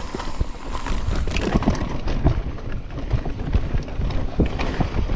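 Irregular knocks, scuffs and crunches of a mountain bike and rider moving over dry, loose, rocky trail, with wind rumbling on the microphone.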